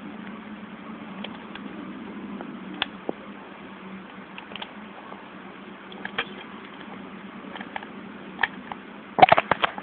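Plastic clicks of PS2 wireless controller buttons being pressed, scattered at first, then a quick run of louder clicks near the end, over a faint steady hum.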